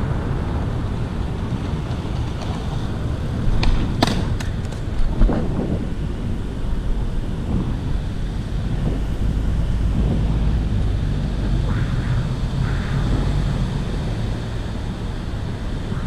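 Wind rumbling on an action camera's microphone during a bicycle ride, mixed with road and traffic noise. There are a few sharp clicks about four seconds in.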